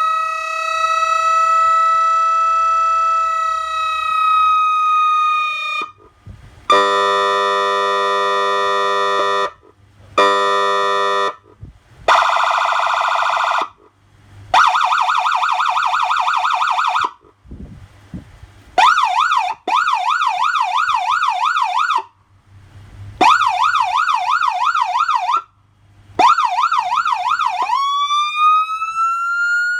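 Feniex Typhoon electronic siren amplifier cycling through its tones. A long high wail tone holds, then cuts off about six seconds in. Then come two blasts of a buzzy horn tone, fast warbling tones, three bursts of rapid up-and-down yelp sweeps, and a wail rising again near the end.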